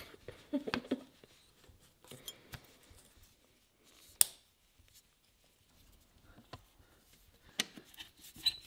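Scattered small clicks, taps and scrapes of hands and a screwdriver working on a two-stroke dirt bike engine's top end, with one sharp click about four seconds in.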